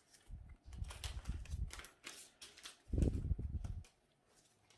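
Handling noise from Magic trading cards being flipped through and sleeved: light clicks and rustles of card stock, with two clusters of dull low thuds, one near the start and one about three seconds in.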